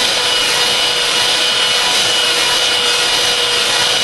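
Electric mixer running steadily, its beaters whipping heavy cream and powdered sugar in a glass bowl, close to stiff peaks.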